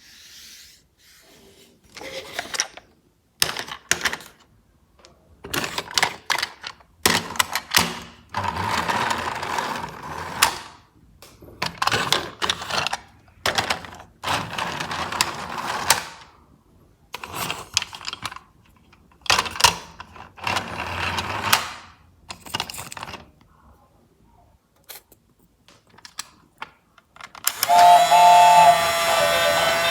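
A toy train's mechanism clattering and rattling in irregular stop-start bursts, some brief and some lasting a couple of seconds, with short quiet gaps between them. Music begins near the end.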